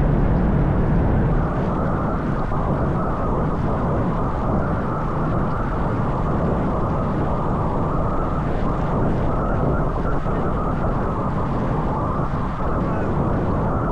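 Steady wind rushing and buffeting over an action camera's microphone on a moving bicycle, heaviest in the low end.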